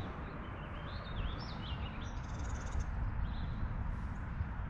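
Songbirds calling: a string of short whistled, up-and-down notes and a rapid buzzy trill about two seconds in, over a steady low rumble.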